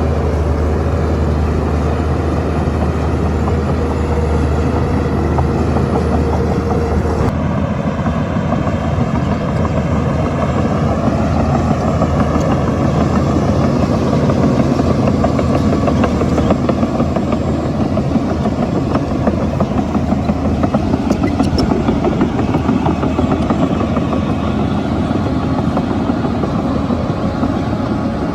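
Heavy diesel engine of a bulldozer running under work. It is a steady drone at first, then changes abruptly about seven seconds in to a rougher, busier running.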